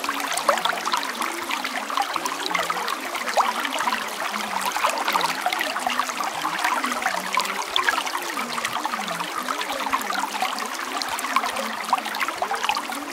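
Steady running, trickling water with a dense bubbling crackle, even throughout.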